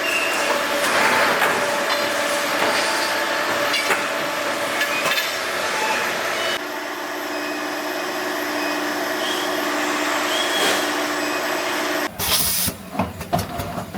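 Factory workshop machinery: a steady hiss and hum that changes abruptly twice, then a quick run of clicks and knocks near the end.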